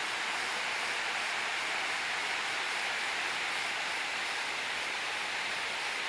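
River water spilling over a low rock ledge into a pool, a small waterfall giving a steady, even rushing sound.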